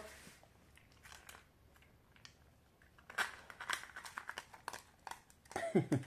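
Dog licking and crunching empty eggshells: after a quiet start, a run of small crackles and clicks of shell in the second half, with a short falling vocal sound near the end.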